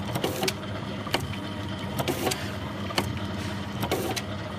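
Automatic liquid sachet packing machine running: a steady motor hum with sharp mechanical clacks about once or twice a second as its sealing mechanism closes on the soy sauce pouches.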